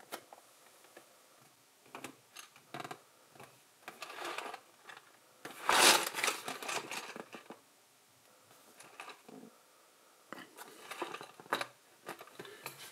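A LEGO set's cardboard box being handled and opened by hand: scattered taps and clicks, with a louder noisy stretch of packaging handling lasting about two seconds around six seconds in.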